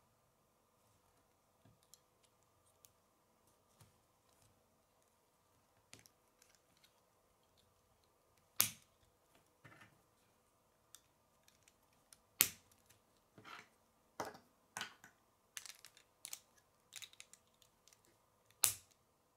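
K'nex plastic pieces clicking and snapping as rods are pushed into connectors and spacers. Scattered faint clicks at first, then louder, more frequent snaps, the sharpest a little under halfway in, past halfway and near the end.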